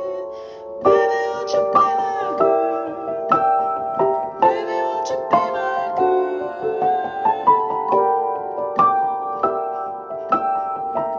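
Piano playing an instrumental passage of a slow song. Chords and single notes are struck about once or twice a second, and each is left ringing on.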